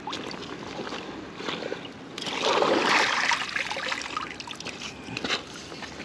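Water sloshing and splashing at the river's edge around a landing net held in the shallows, swelling into a louder splash about two seconds in, with a few small knocks.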